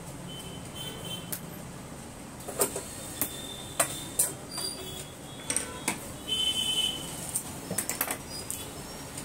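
Tailor's chalk scraping on cloth and a long straight ruler being moved and set down on the cutting table: scattered sharp clicks and taps over a low hum.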